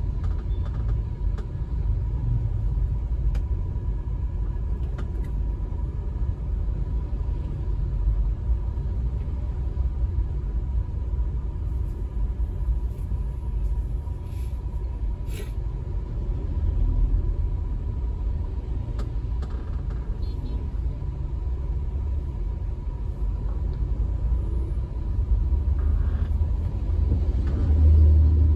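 Steady low road and engine rumble of a moving car, heard from inside its cabin, swelling near the end.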